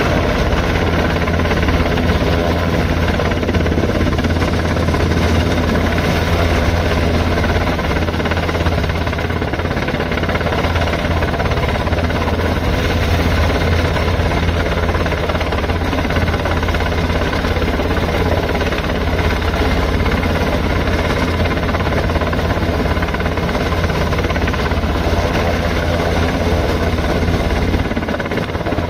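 Rescue helicopter's rotor and engines running loud and steady, with a deep, low rotor sound that eases off slightly near the end.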